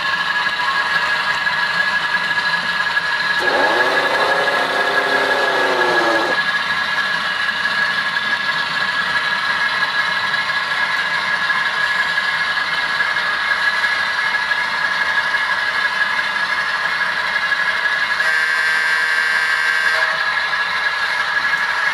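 HO-scale ALCO RS-1 model diesel's DCC sound decoder playing a steady engine idle through its small speaker, with a thin, high, constant whine. About three and a half seconds in, a wavering pitched sound plays for about three seconds, and a brief higher sound comes near the end.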